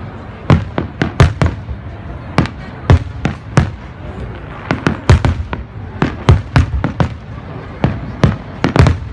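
Fireworks display with aerial shells going off in quick, irregular succession: about two sharp bangs a second, some in close clusters.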